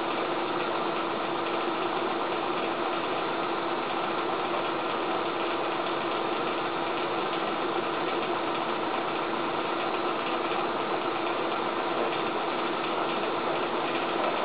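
Small motor running steadily: a constant hum over an even rushing noise, with no change in speed.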